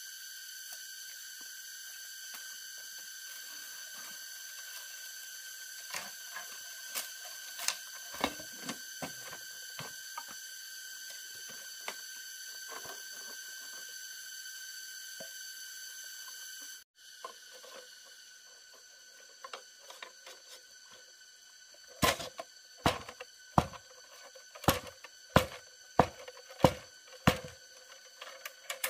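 A steady high ringing drone with scattered light taps, cut off suddenly partway through. It is followed by a run of sharp, evenly spaced knocks, about one and a half a second, like a blade striking wood or bamboo.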